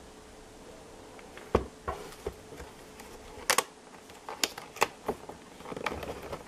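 Cardboard and plastic toy packaging being handled and opened: a scatter of separate sharp clicks and knocks, several over a few seconds.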